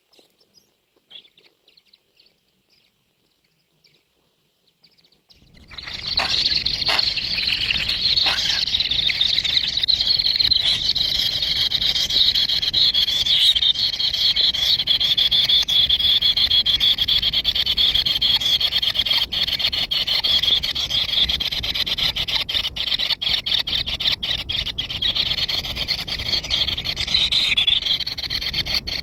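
Many small birds chirping and chattering at once in a dense, continuous high-pitched chorus. It sets in suddenly about five seconds in, after near silence with a few faint chirps.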